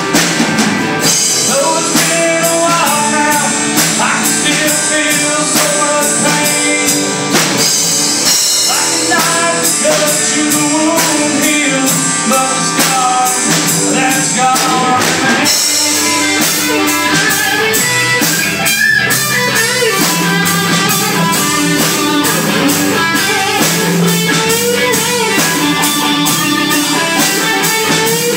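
Live rock band playing an instrumental break: a lead guitar solo with bending, wavering notes over rhythm guitar, bass and drums.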